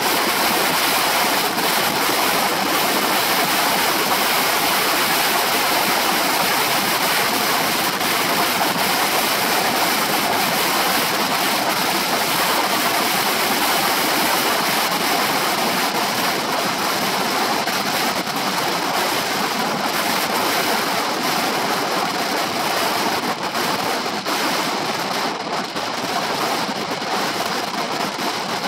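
Steady wind rushing over the microphone of a shoulder-mounted camera on a moving scooter. It is a little quieter near the end.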